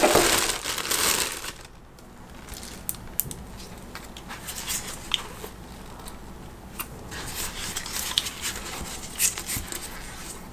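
Clear plastic packaging (blister tray and bag) crinkling and crackling as an action figure is pulled out, loudest in the first second and a half. After that, softer rustling with scattered small clicks as the figure and its foam wrap are handled.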